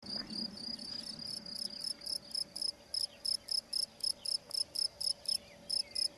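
Cricket chirping: a high, even chirp repeated about four times a second, running together at first.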